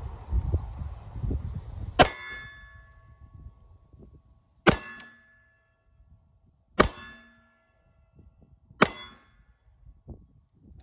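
Four shots from a Taurus G3c 9mm compact pistol, about two seconds apart, each cracking sharply and followed by a short ring. Wind rumbles on the microphone before the first shot.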